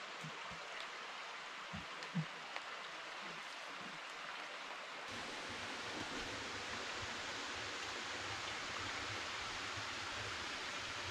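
Steady rush of a small woodland stream flowing nearby, with a few soft thumps about two seconds in. About halfway through, a low rumble joins the water noise.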